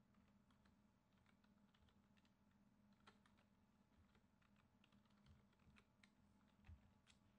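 Faint computer keyboard typing: irregular keystrokes several times a second over a low steady hum, with a soft low knock near the end.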